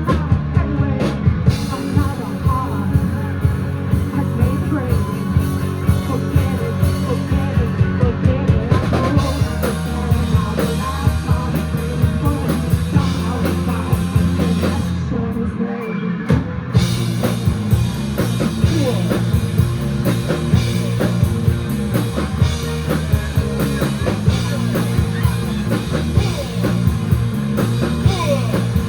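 Live rock band playing a song: electric guitars, bass and a drum kit keeping a steady beat, with a singer's voice. The drums and cymbals drop out for a moment about halfway through, then come back in.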